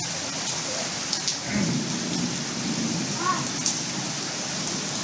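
Steady rain falling, with a low rumble of thunder about one and a half seconds in.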